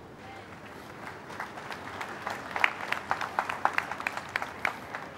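A large congregation applauding: a haze of crowd noise with scattered hand claps that pick up about a second and a half in.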